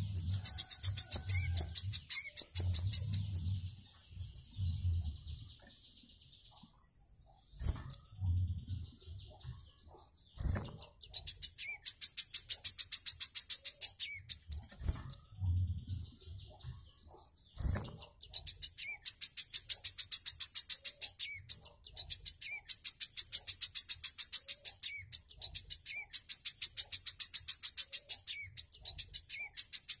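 A caged wiceh, a small sunbird also called kolibri manggar, singing its rapid, buzzy trilling song in repeated bursts of a second or two. The song drops away for several seconds about a third of the way through, then runs almost unbroken. A few low thumps and sharp knocks are heard.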